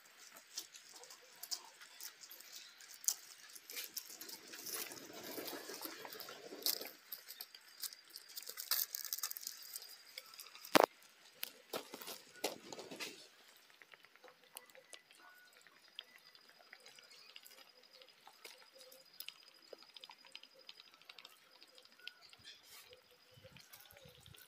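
Muscovy ducks foraging at close range: scattered light clicks and taps of pecking and shuffling on gravel, with soft breathy noise around the fifth to seventh second and again near the twelfth. One sharp knock about eleven seconds in is the loudest sound.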